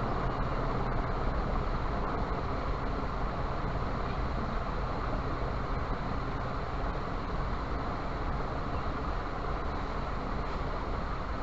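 Steady background noise, an even rushing hiss with a low hum under it, without distinct knocks or clicks.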